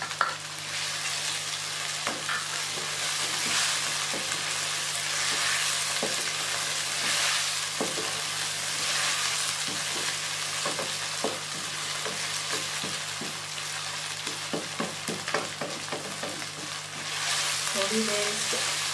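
Chicken with ginger-garlic paste and green chillies sizzling in hot oil in a karahi, being fried down (bhuna) over the flame. A wooden spatula stirs steadily, with many light scrapes and knocks against the pan.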